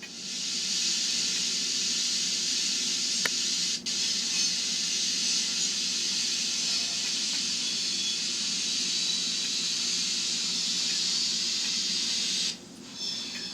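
Long steam hiss played by the LokSound sound decoder through the small speaker of an N scale Bavarian S 3/6 steam locomotive model. It holds steady, dips briefly about four seconds in, and cuts off suddenly near the end.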